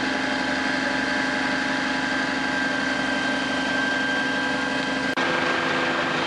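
Fire truck engines idling steadily, with a high steady whine over the hum. About five seconds in, a brief dropout and a switch to a second idling engine with a slightly different tone.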